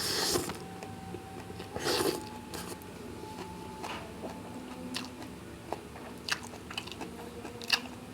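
A person chewing and biting a mouthful of rice and side dishes close to the microphone, with crunchy bites early on and a few sharp mouth clicks and smacks in the second half.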